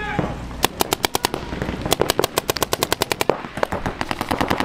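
Paintball markers firing in rapid bursts of about ten shots a second, with short pauses between bursts.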